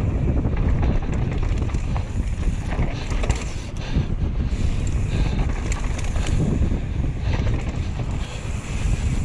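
Wind buffeting the microphone over the rumble of mountain bike tyres rolling fast on a loose, rocky dirt trail, with scattered sharp clicks and knocks from stones and the bike jolting over bumps.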